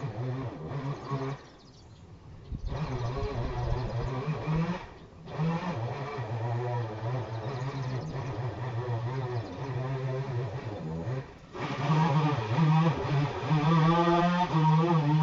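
Small engine of a gardening crew's power tool running and revving up and down, dropping out briefly twice in the first few seconds, then running louder near the end.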